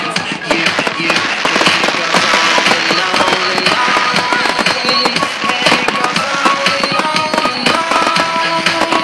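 Fireworks crackling and popping in a dense run of sharp cracks, with music playing underneath.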